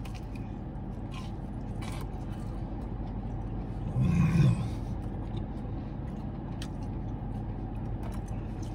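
A man chewing a fried chicken tender, with one short, loud voiced exhale about four seconds in, over a steady low hum inside a car.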